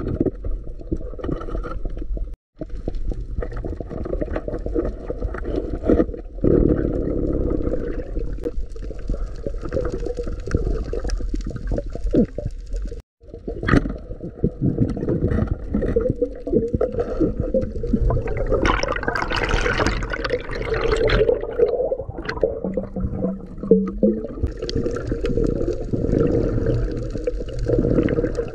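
Muffled water sloshing and gurgling, picked up by a camera in the water during a night dive. It cuts out briefly twice. A louder, hissing rush of water comes about two-thirds of the way through.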